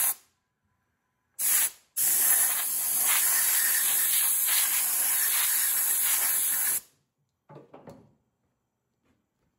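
Compressed-air blow gun blowing chips and coolant off a freshly milled part: a short burst, then a steady hiss of about five seconds that cuts off suddenly, followed by a couple of faint knocks.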